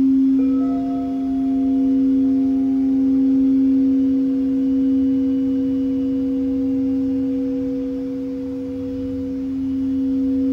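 Quartz crystal singing bowls ringing together in long, steady, overlapping tones. A low tone holds throughout, and a higher bowl is struck about half a second in, its tone joining and ringing on; the sound swells and fades slowly.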